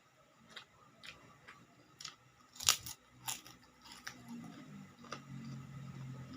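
Close-up mouth sounds of eating: chewing with crisp crunches from kerupuk crackers, the loudest crunch about two and a half seconds in. A low hum-like sound runs through the second half.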